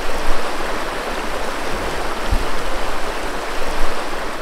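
Stream water rushing, a steady, loud hiss.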